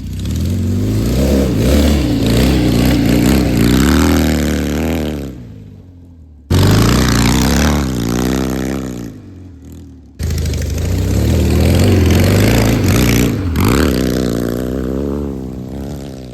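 1957 Triumph Desert Sled's 650 cc parallel-twin engine revving up and easing off while the bike is ridden over dirt trails. The sound comes in three stretches, each beginning abruptly, with pitch rising and then falling away in each.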